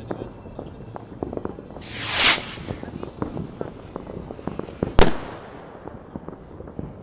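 Fireworks: a rocket goes up with a hiss that swells over about half a second, two seconds in, and bursts with one sharp, loud bang about five seconds in, over a steady crackle of many distant firecrackers.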